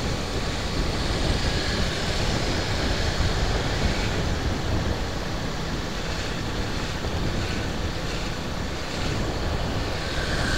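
Steady rush of wind on the microphone and road noise from a vehicle moving through street traffic.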